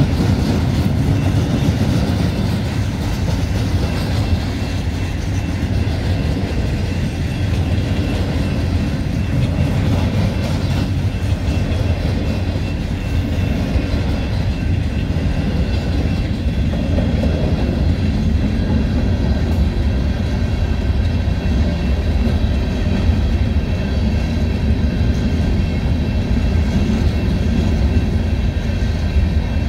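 Freight train cars rolling steadily past at a grade crossing: loaded pulpwood log cars give way to covered hopper cars, with steel wheels running over the rails in a continuous low rumble.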